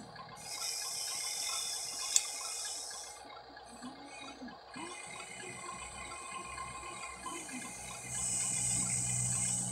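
Soil pouring from a Huina 1593 RC excavator's bucket into a toy dump truck bed, a hissing pour with one sharp knock about two seconds in. Then the excavator's small electric motors run as the arm swings and lowers.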